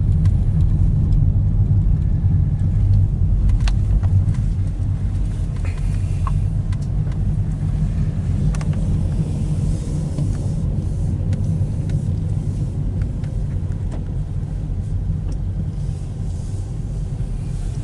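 Car driving slowly, a steady low rumble of engine and road noise with a few faint ticks, easing slightly quieter toward the end.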